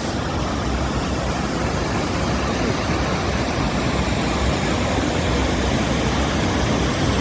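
Steady rushing roar of a large waterfall, the water of Athirappilly Falls crashing down the rocky gorge.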